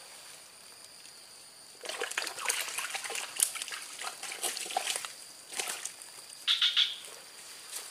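Water sloshing and splashing in irregular bursts as hands dip into shallow canal water, starting about two seconds in, with two short splashes near the end.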